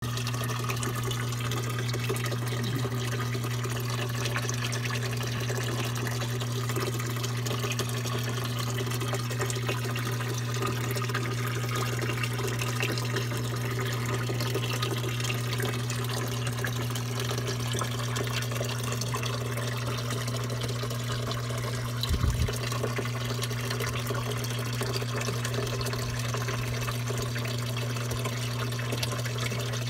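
Steady running, trickling water of a fish pond over a steady low hum, with one brief low thump about two-thirds of the way through.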